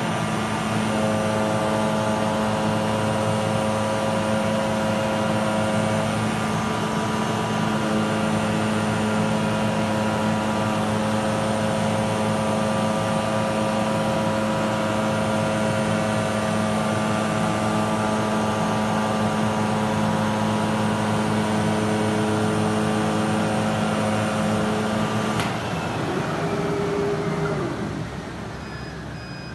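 CNC oscillating knife cutting machine running steadily while it cuts thick foam, a loud mechanical hum with several held tones. About 25 seconds in it cuts off with a click, leaving a quieter whine that falls in pitch as it spins down.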